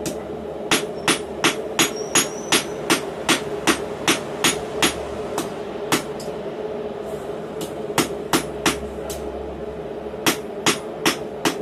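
Blacksmith's hand hammer striking a hot, doubled steel bar on an anvil: sharp, even blows about two and a half a second, a pause of about two seconds, then two short runs of three or four blows. A steady hum runs underneath.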